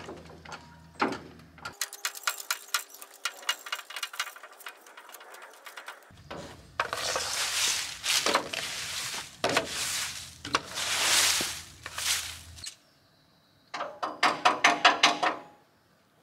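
Seized, rusted bolts on an old Harvey Frost engine crane being forced with a long breaker bar. Clicking and rattling of tools and metal give way to several harsh creaking squeals about a second long as the bolts are forced. Near the end comes a quick run of about eight sharp metallic knocks.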